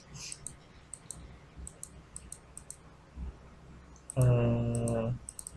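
Scattered light clicks of a computer mouse. About four seconds in, a voice holds one steady hum for about a second, the loudest sound.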